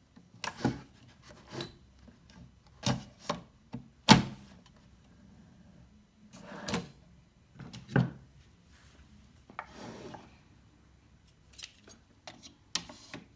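Irregular clicks and knocks as slide-out shelf locks are handled and set into a wooden drawer tray, the loudest knock about four seconds in.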